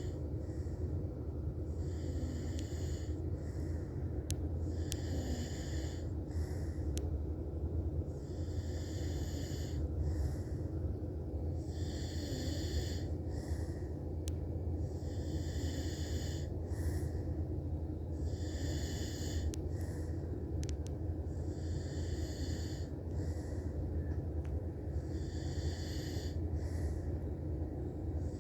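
A man snoring in a steady rhythm, one breath roughly every three seconds, over a steady low hum.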